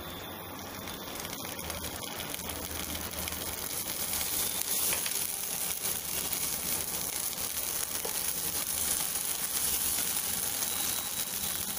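Ginger-garlic paste sizzling in hot oil in a pan, building up over the first few seconds and then holding steady.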